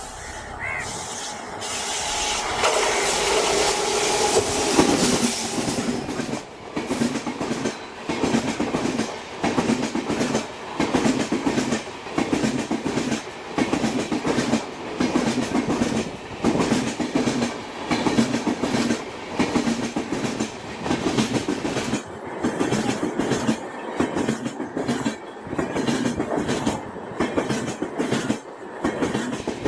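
Express passenger train passing at speed without stopping. The sound builds over the first few seconds, then the coaches' wheels clatter over the rail joints in a steady rhythm, with a burst of clicks roughly every second and a quarter.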